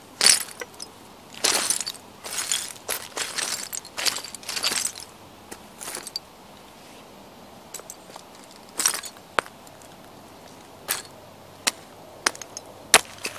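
Timberland boots stomping on shards of broken plates on dirt, each stomp a sharp crunch with clinking fragments. A quick run of stomps comes in the first five seconds, then single stomps every second or two.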